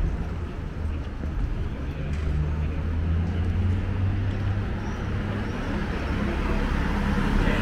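Road traffic on a wide city street: a steady low engine hum that swells in the middle and fades, over the wash of passing vehicles.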